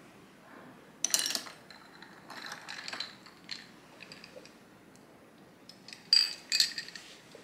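Ice cubes clinking and rattling against a tall glass as an iced drink is stirred with a metal spoon, in several short bursts, the loudest about a second in and again near the end.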